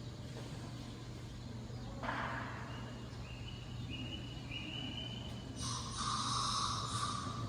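Southern tamandua hiccuping. About two seconds in there is a short rush of noise, and near the end a louder hiss-like noise lasts about two seconds.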